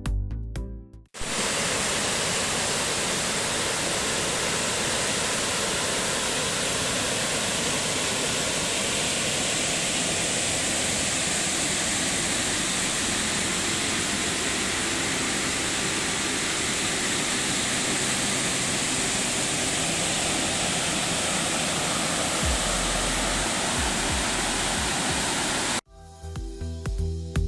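Waterfall rushing, a steady even roar of falling water. It starts abruptly just after a second in, when background music cuts out, and the music returns near the end.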